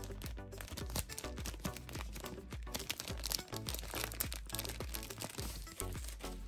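Clear cellophane candy wrapper crinkling and rustling as it is pulled off a chocolate bunny lollipop, with many quick crackles, over light background music with a steady bass beat.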